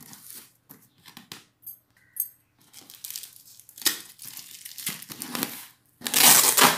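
Clear packing tape being peeled and torn off a cardboard box, the plastic crinkling in short, uneven rips, with the loudest, longest tear near the end.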